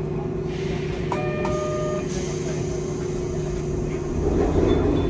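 Hankai Tramway car standing at a stop, its onboard equipment giving a steady electrical hum. A short electronic beep sounds about a second in, and there is a brief louder rush near the end.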